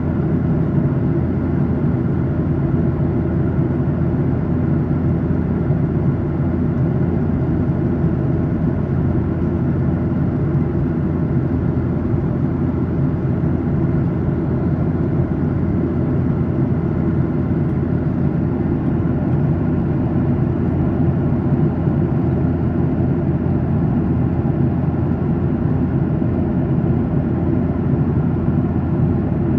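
Steady cabin drone of a Boeing 737-800 in cruise, heard from inside the cabin: its CFM56-7B turbofan engines and the airflow over the fuselage make an even, unbroken hum with several steady tones running through it.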